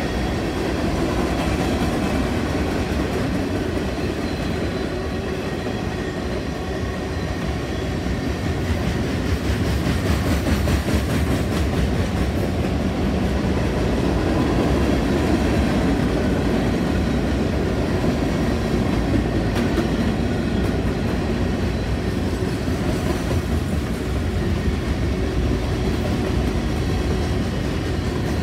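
A long freight train of covered hoppers, boxcars and tank cars rolling past close by, with a steady rumble and the wheels clacking over the rail joints.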